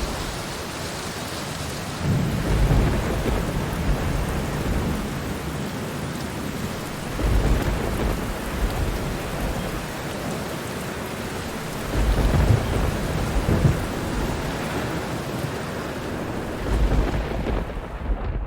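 Steady rain hiss with low rolls of distant thunder swelling up about four times, a few seconds apart.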